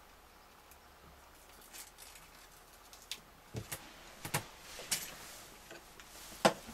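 Hands handling small plastic kit parts on a wooden table. Quiet for the first few seconds, then scattered taps and clicks with a little rustling, the sharpest click near the end.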